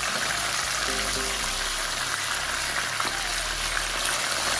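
Whole fish shallow-frying in hot oil in a pan, the oil sizzling steadily while a spatula turns the fish over.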